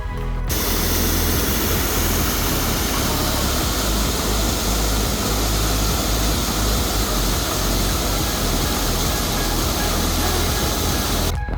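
Loud, steady roar of water rushing over a waterfall, an even hiss and rumble with no rhythm that cuts in about half a second in and stops sharply just before the end.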